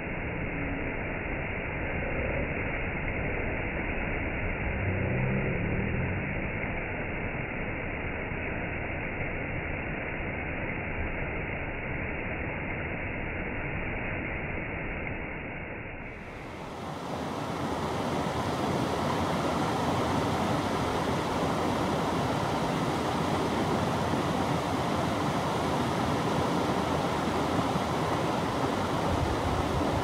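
Stream water splashing steadily over a small rocky cascade, sounding dull and muffled. About halfway it switches to a brighter, fuller rush of water over river rapids.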